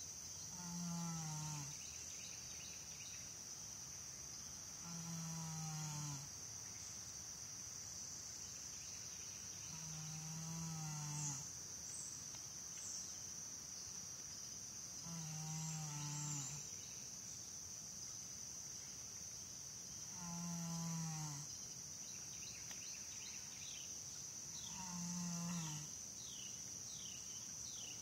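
American Saddlebred horse snoring: a low pitched note about a second long that falls slightly, repeating evenly about every five seconds, six times.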